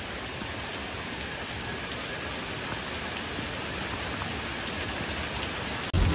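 Heavy rain pouring steadily onto a flooded street, a dense even hiss. Just before the end it cuts abruptly to a louder low rumble.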